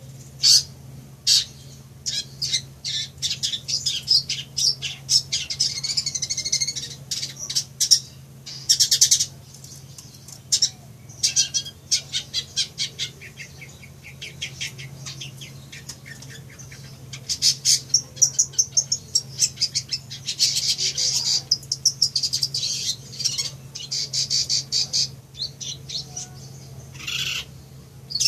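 Long-tailed shrike (cendet) singing: fast runs of high chattering notes and trills in bursts of a few seconds, broken by short pauses, over a steady low hum.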